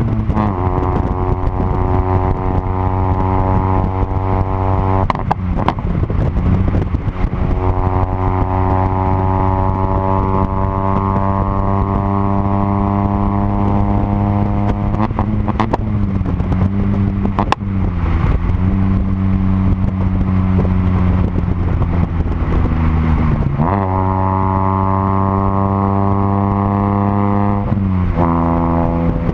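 Renault Kwid's three-cylinder engine with a full exhaust system, driving and pulling through the gears. The engine note climbs slowly, then drops sharply at each of about four upshifts.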